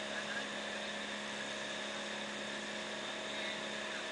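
Outrigger boat's engine running steadily while underway: a constant drone with a steady hum.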